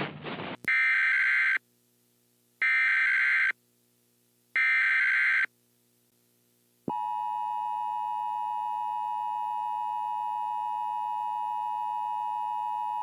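Emergency Alert System tones: three SAME header data bursts, each a harsh digital screech about a second long with a second's gap between them. About seven seconds in, the steady two-tone EAS attention signal starts and holds.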